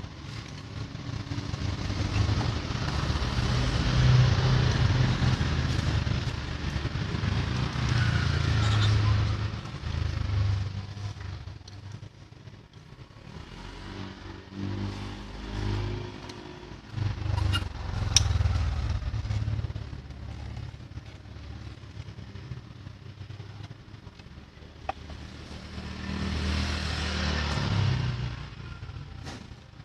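Motor vehicle engine sound, a low rumble that swells and fades several times, with a few sharp clicks about 17 to 18 seconds in.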